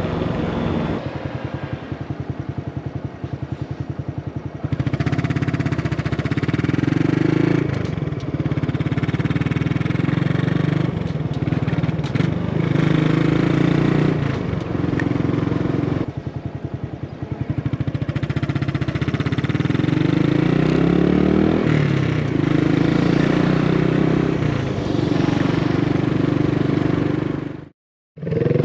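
Honda Grom's 125 cc single-cylinder four-stroke engine, breathing through a cylindrical muffler fitted with its supplied end baffle, under way on level road. It runs at low revs at first, then from about five seconds in climbs in pitch again and again and drops back with each gear change and easing off. The baffle trims the low end and leaves the exhaust note very quiet. The sound cuts out for a moment just before the end.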